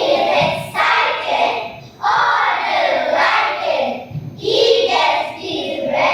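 A group of children's voices reciting together in unison, in short phrases of about a second each.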